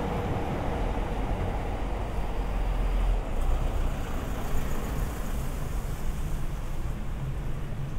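Low rumble of passing traffic on a city street, strongest in the first three seconds and then easing into a steadier background noise.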